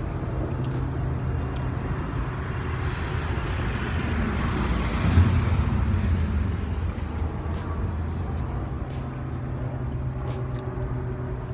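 Road traffic: a steady low engine hum, with a vehicle passing that swells up and is loudest about five seconds in, then fades.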